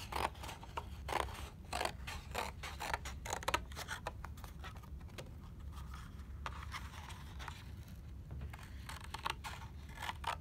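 Small scissors snipping through thin snack-box cardboard in a quick run of short cuts. The cutting eases off in the middle, then picks up again near the end.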